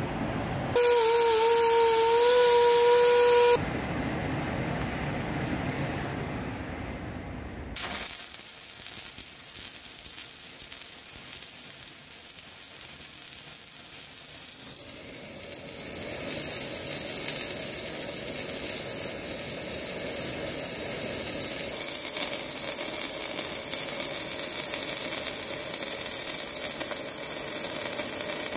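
MIG welding arc hissing and crackling steadily as a weld is laid around the end cap of a new steel hydraulic cylinder barrel, from about 8 s in and louder from about 16 s. Near the start, a loud steady whine lasting about three seconds.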